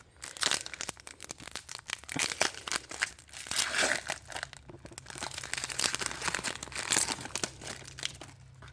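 Plastic foil trading-card pack wrapper crinkling and tearing as a pack is opened by hand, in a quick irregular run of crackles.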